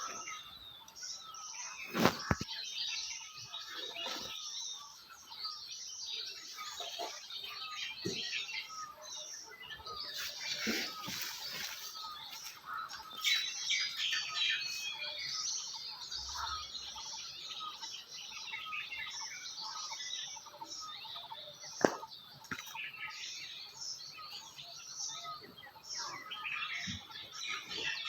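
Many small birds chirping and twittering continuously in a dense chorus, with a sharp click about two seconds in and another about twenty-two seconds in.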